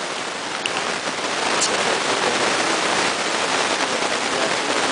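Loud, steady hiss of noise like heavy rain, growing a little louder about a second in.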